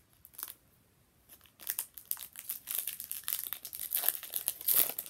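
Foil Pokémon booster pack being crinkled and torn open by hand. Dense crackling starts about one and a half seconds in and is loudest near the end.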